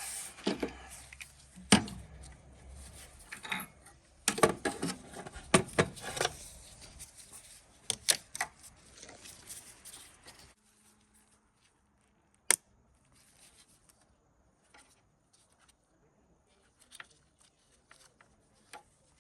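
Irregular metallic clicks, clanks and rattles of hand tools and parts being handled, coming in clusters, until an abrupt drop about ten seconds in to near silence broken by a few faint clicks and one sharp click.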